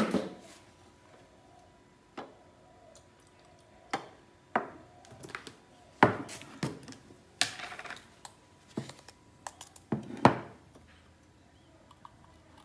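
Irregular clicks, taps and knocks from handling a tin of powdered milk, its plastic lid, a plastic scoop and a small feeding bottle on a wooden table while making up formula.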